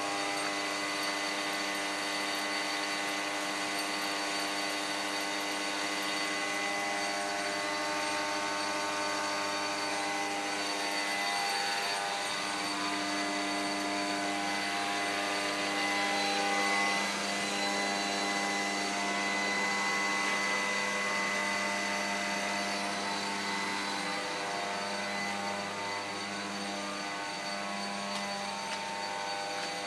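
Small electric motor on a homemade tire-to-syngas rig running steadily: a hum of many even tones over a steady rushing noise.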